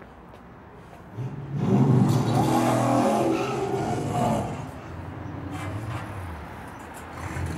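A motor vehicle engine passing: it comes up about a second in, is loud for about three seconds, then fades away.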